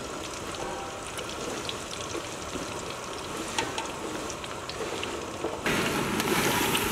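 Potato fries deep-frying in hot oil in a wok, a steady sizzle with small crackling pops; near the end it turns suddenly louder and fuller.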